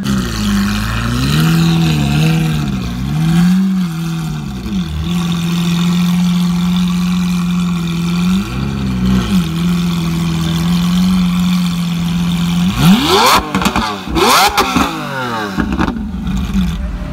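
Lamborghini Aventador LP700-4's V12 idling through an ARMYTRIX header-back valvetronic exhaust. It is blipped several times in the first few seconds and once more about nine seconds in, then revved hard twice near the end, the pitch climbing steeply each time.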